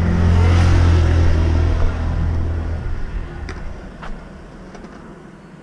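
A motor vehicle passing on the road, its low engine hum and tyre noise loudest at first and fading away by about three seconds in. A few faint clicks follow near the end.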